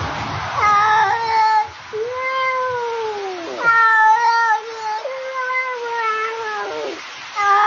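Domestic cat yowling: about four long, drawn-out meows in a row, each held for a second or two, several dropping sharply in pitch at the end.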